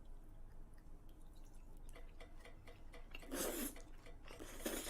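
Faint close-up eating sounds: chewing of cheesy noodles with many small wet mouth clicks, and two short breathy bursts, about three and a half and four and a half seconds in.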